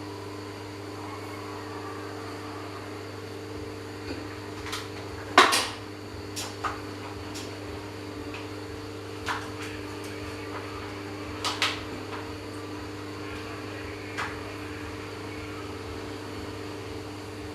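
Electric fan motor running with a steady hum, with a scatter of light clicks and knocks over it, the loudest about five seconds in.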